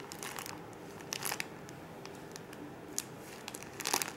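Plastic Ziploc bag crinkling and crackling as it is squeezed to pipe a thick mixture out of a torn-off corner. The crackles are scattered and faint, with louder clusters about a second in and near the end.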